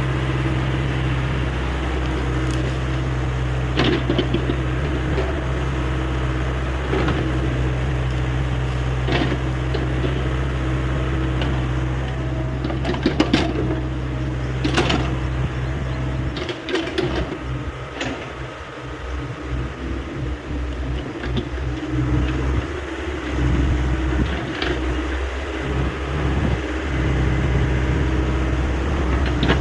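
Hyundai 85A excavator's diesel engine running steadily, with sharp knocks several times as the machine works. About halfway through, the low engine drone turns uneven.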